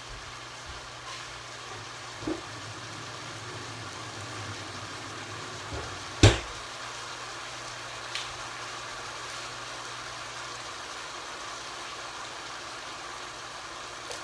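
Chicken frying in bacon grease in a pan, a steady sizzle, with a low hum that stops about eleven seconds in. A single sharp knock about six seconds in is the loudest sound, with a couple of lighter clicks.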